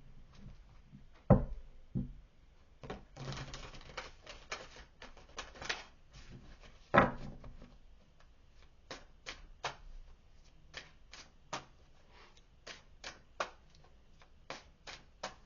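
Tarot cards being shuffled by hand: a rustling stretch of cards sliding together, then a run of light, evenly spaced card clicks about two to three a second, with a few louder knocks of the deck on the table.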